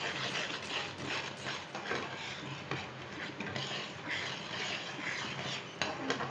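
Wooden spatula stirring a thick, bubbling tamarind and jaggery syrup in a black metal kadai, in quick repeated strokes that scrape the pan so the mixture doesn't stick to the bottom as it thickens.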